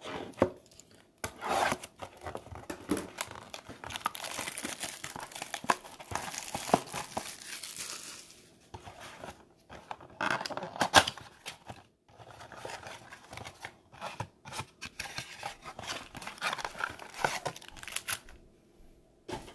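A shrink-wrapped cardboard trading-card blaster box being torn open: irregular tearing and crinkling of plastic wrap and cardboard with sharp snaps, densest a few seconds in.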